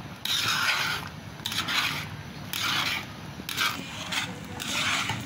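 A spoon scraping round the bottom of a pan in rhythmic strokes, about one a second, stirring thickening wheat halwa batter so it does not catch on the bottom.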